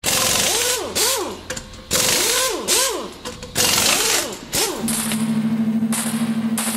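An engine revved in quick blips, three pairs of sharp rising-and-falling revs with a rasping exhaust. From about five seconds in, a steady low hum takes over, pulsing about eight times a second.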